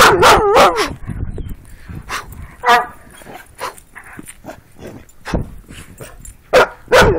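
A dog barking and yipping in short bursts: a quick cluster of barks at the start, a single bark about three seconds in, and another cluster near the end.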